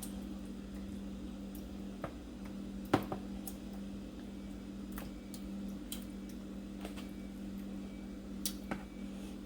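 A few light, scattered taps and clicks of a serving utensil as meat sauce is spooned and spread over a lasagna layer, the sharpest about three seconds in, over a steady low hum.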